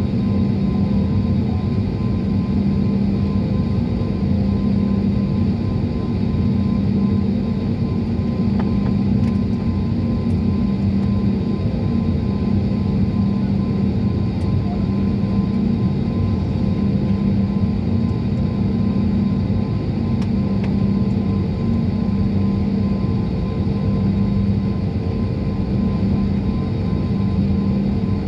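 Airliner jet engines and airflow heard inside the passenger cabin: a loud, steady drone with a low hum that pulses slightly.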